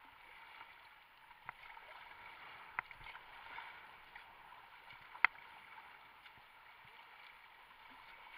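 Water hissing and splashing along a kayak's hull as it is paddled, with a few sharp knocks, the loudest about five seconds in.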